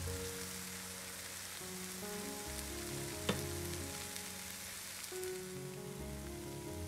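Eggs, peas and spinach sizzling steadily in an oiled frying pan, over soft background music. A single sharp click about three seconds in.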